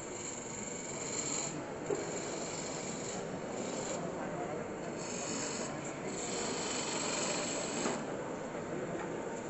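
Turning tool cutting a spinning wooden blank on a wood lathe: a rough, rasping hiss of shavings coming off, rising and falling in several passes of about a second each.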